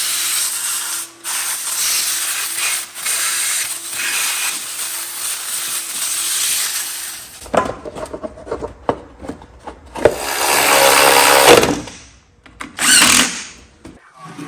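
Shop vacuum running steadily, its hose nozzle sucking dirt and debris from around a lawn tractor engine's cylinder and cooling fins. About seven and a half seconds in it stops, and a few short loud bursts of other mechanical noise and knocks follow.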